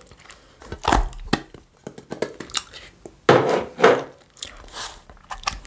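Food packaging being handled and opened: crinkling and rustling with a few sharp clicks and taps.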